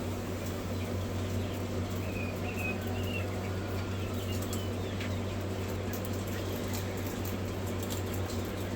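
Steady low electrical or fan hum of hatchery equipment, with a few faint quail chick peeps two to three seconds in and scattered light taps and scratches from the birds.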